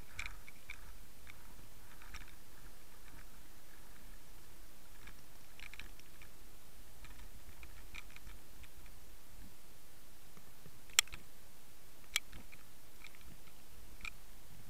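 Underwater ambience picked up through an underwater camera's housing: a steady low rumble of water with scattered faint clicks and ticks, and two sharper clicks near the end.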